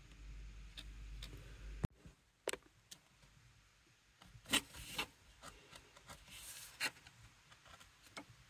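Utility-knife blade cutting through thick paper on a wooden table: short, separate scratchy strokes and clicks, the loudest about halfway through, and a longer scraping cut a little later. A low steady hum for the first two seconds cuts off abruptly.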